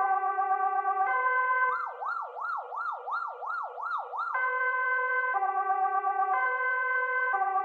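Electronic siren sound effect: a two-tone hi-lo siren switching pitch about once a second, broken for nearly three seconds by a fast yelp that sweeps up and down nearly three times a second, then back to the two-tone pattern.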